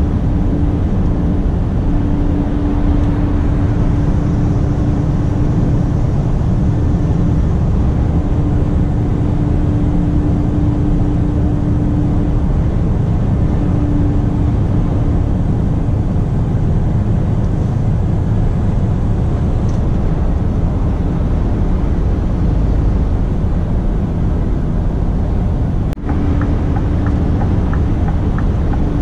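Scania R450 truck on the move: a steady, loud engine and road rumble, with a steady hum that fades in and out and a brief break near the end.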